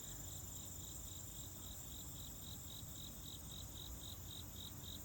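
Insects chirping outdoors: a regular high-pitched chirp repeating about four to five times a second over a constant higher-pitched trill, with a faint low rumble beneath.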